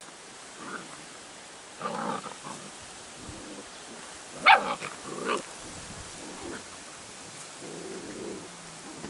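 Airedale Terrier puppies playing rough, giving short growls and barks now and then. The loudest is a sharp, high bark about halfway through.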